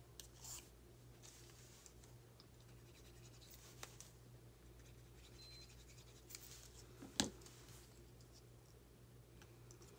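Quiet paper-crafting sounds over a faint steady hum: soft scratching and rustling of cardstock as liquid glue is spread on it. One sharper tap comes about seven seconds in.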